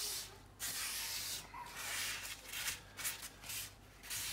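Folded paper towel rubbed in repeated short strokes over the oiled base of a cast iron skillet, wiping off the excess seasoning oil.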